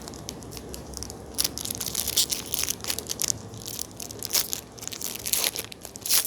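Trading cards and their pack wrapper being handled: a run of short, scratchy crinkles and scrapes as a pack is opened and the cards are slid through the hands.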